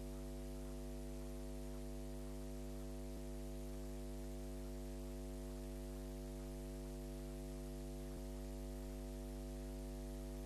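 Steady electrical mains hum with a buzzy stack of overtones and a faint hiss, unchanging throughout; no sound from the game itself comes through.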